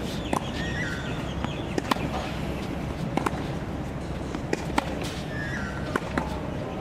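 Tennis balls being struck by a racket and bouncing on a hard court: a string of sharp pops every second or so during a groundstroke rally.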